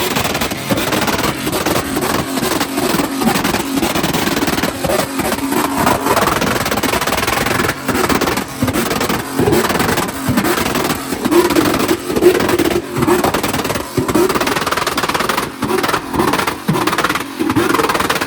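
A vehicle engine running and revving unevenly, with voices in the background.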